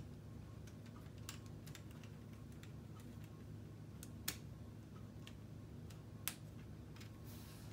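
Small plastic clicks and taps of K'Nex rods and connectors being handled and snapped together, scattered and light, with two sharper snaps about four and six seconds in.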